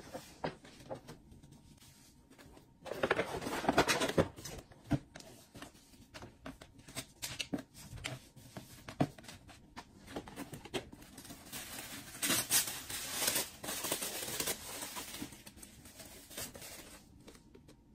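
Close handling of gift packaging: a stiff paper shopping bag rustling, a satin ribbon being untied from a cardboard gift box, and tissue paper crinkling as it is folded back, with many light taps and clicks. There are two longer spells of rustling, about three seconds in and again about twelve seconds in.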